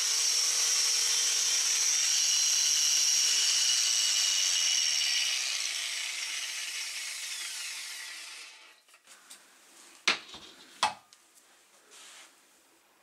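Bosch GWS 7-115 angle grinder, its bearings freshly replaced, spinning free after a cut, then switched off about three seconds in: its high whine falls in pitch and fades out over the next several seconds. Two sharp knocks about a second apart follow near the end.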